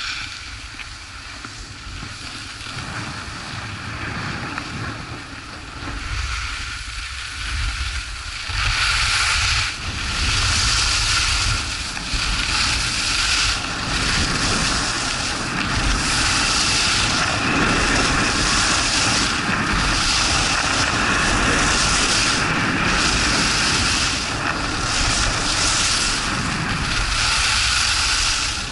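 Wind buffeting the camera microphone, with the hiss and scrape of edges carving groomed snow on a downhill run. Quieter for the first several seconds, then much louder from about eight seconds in, swelling and easing every second or two with the turns.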